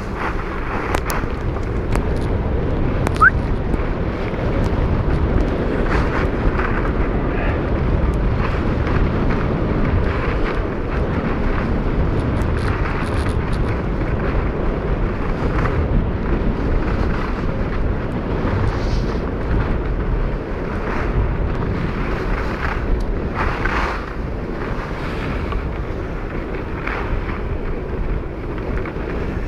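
Wind rushing over the microphone of a camera carried down a ski slope, with occasional swishes of skis sliding on the snow.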